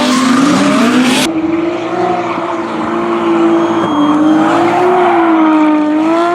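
Drift car's engine held at high revs, its pitch rising and falling with the throttle, with a loud hiss of tyre noise that cuts off suddenly about a second in.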